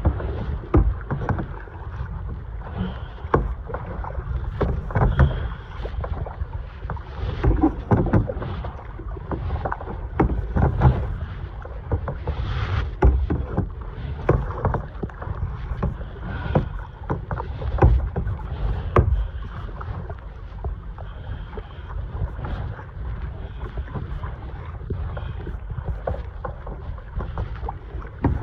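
Kayak on the ocean: water splashing and sloshing against the hull, with frequent irregular knocks and a steady low rumble of wind on the microphone.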